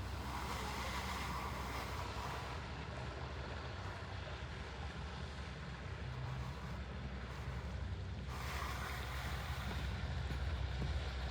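Wind buffeting the microphone outdoors: a steady, fluttering low rumble under a faint hiss, with brief brighter gusts about half a second in and again after about eight seconds.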